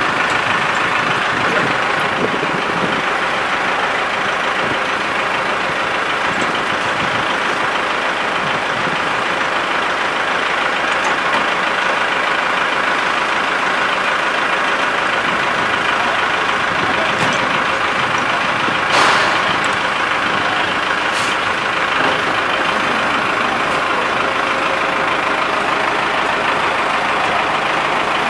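Fire engine running steadily close by, a continuous loud engine noise, with a short louder burst about two-thirds of the way through.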